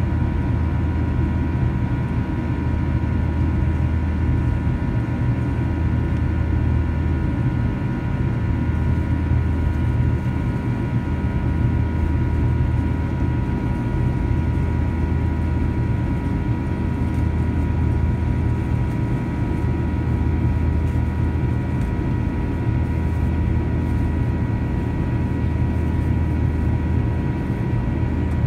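Cabin noise of a Boeing 737-800 climbing out, with its CFM56-7B turbofan engine heard from a seat by the wing: a steady low rumble with a few constant whining tones over it.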